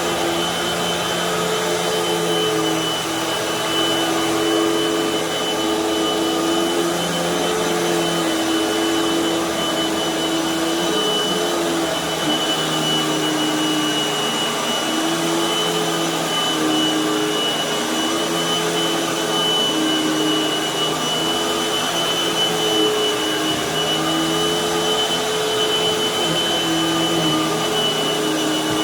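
Hoover High Performance upright vacuum running on carpet, loud, with a steady high whine. Its lower motor tones waver and dip in pitch every second or two as it works the carpet.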